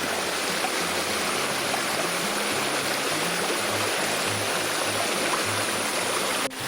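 Mountain stream water rushing and splashing steadily over rocks, with low background music laid under it.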